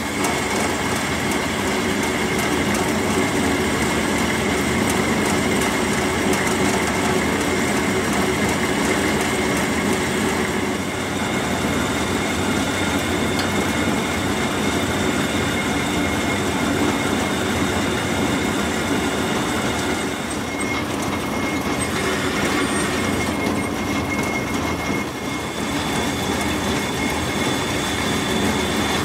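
Metal lathe running with a large metal disc spinning in the chuck while a single-point tool cuts its bore and face: a loud, steady machine noise with a thin, steady high-pitched tone from the cut.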